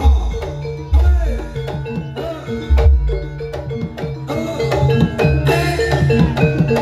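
Live jaranan (kuda lumping) accompaniment: a Javanese percussion ensemble playing a busy, driving rhythm. Deep booming strikes land every second or two under quick drum strokes, ringing metallophone-like tones and short notes that bend in pitch.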